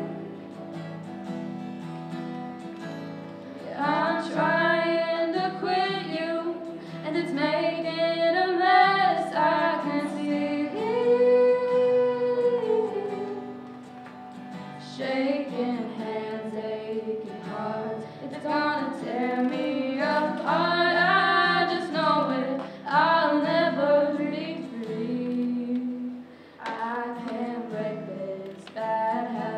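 A singer performing a song live, phrase after phrase, over sustained guitar chords.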